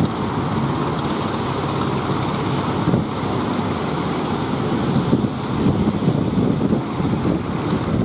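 Wind buffeting the microphone over the steady rush of breaking surf, gusting unevenly throughout.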